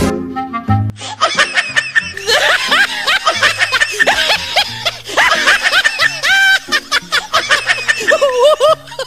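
Background music with a steady bass line, with high-pitched, quick giggling and snickering laughter over it from about a second and a half in.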